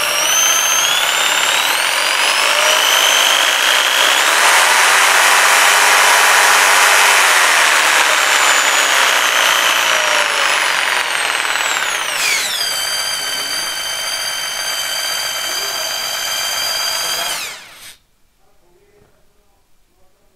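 Makita 4327M 450-watt jigsaw running unloaded in the hand. Its motor whine rises in pitch over the first few seconds as the speed is turned up, holds high, drops sharply about twelve seconds in and runs lower, then switches off a few seconds before the end and winds down in under a second.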